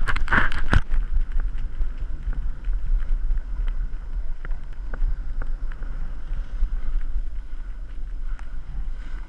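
Wind buffeting the microphone of a GoPro Hero 3 worn by a snowboarder riding fast downhill, a constant low rumble. Under it a snowboard slides and scrapes over packed, tracked snow with scattered clicks of chatter, loudest in a burst of noise in the first second.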